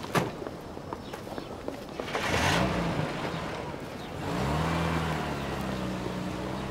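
A sharp knock, then a car engine revs up about two seconds in, rises in pitch again about four seconds in and settles into a steady run.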